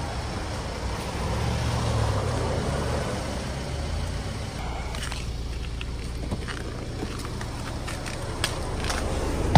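A 2018 Mercedes-Benz C300's 2.0-litre turbocharged four-cylinder idling steadily, partly warmed up after a cold start in extreme cold. A few sharp clicks come near the end as the driver's door is opened.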